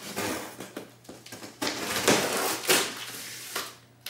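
Large cardboard shipping box being shifted and handled on a wooden workbench: several scraping, rustling noises.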